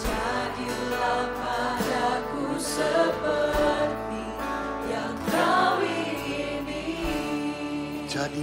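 Slow worship song: several singers on microphones singing a drawn-out melody together over a steady band accompaniment.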